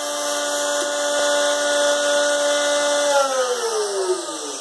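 Electric wood router running at full speed with a steady high whine, then switched off about three seconds in and spinning down, its pitch falling as it slows.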